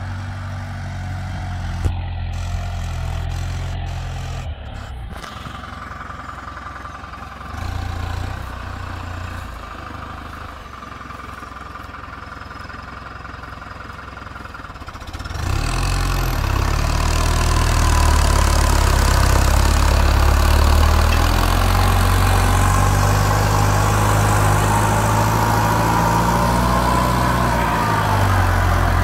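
New Holland TD90D tractor's diesel engine running steadily under load as it pulls a mounted plough through the soil, a deep drone that turns much louder about halfway through.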